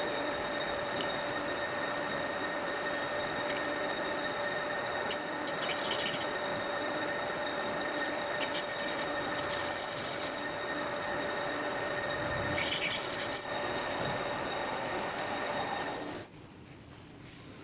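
Metal lathe running with a steady whine, with brief high-pitched scraping twice, during work on a brass part. The sound drops off sharply about sixteen seconds in.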